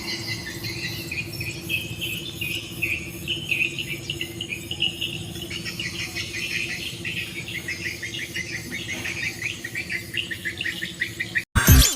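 Small birds chirping and twittering in quick, repeated high notes, over a steady low hum. Just before the end it cuts off abruptly and a ringing tone begins.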